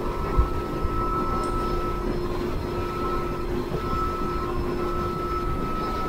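Motorboat under way: its engine drones steadily with a constant high whine over the rush of wind and water along the hull. There is a single thump about half a second in.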